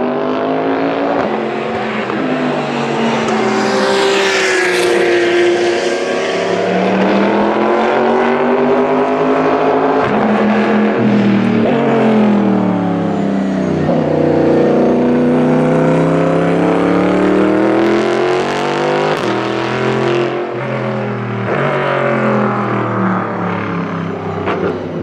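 Toyota Supra GT300 race car's 3.4-litre V8 running hard, its pitch climbing and falling again several times as the revs rise and drop.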